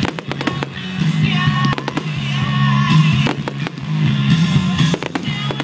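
Aerial firework shells bursting in quick succession, many sharp bangs close together, with music playing underneath.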